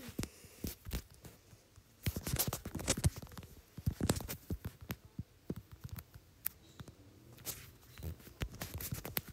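Fast, irregular tapping of fingertips typing on an iPad's on-screen keyboard, in quick clusters of taps with short pauses between them.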